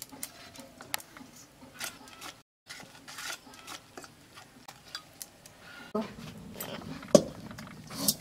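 Light clinks and scrapes of a spoon against a steel bowl as chopped cabbage is stirred into beaten egg, with a few sharper knocks near the end.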